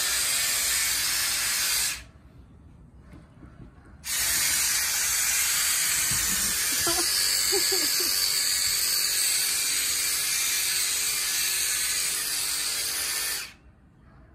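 Power drill running steadily in two long runs: it stops about two seconds in, starts again two seconds later, runs for about nine and a half seconds and cuts off suddenly near the end.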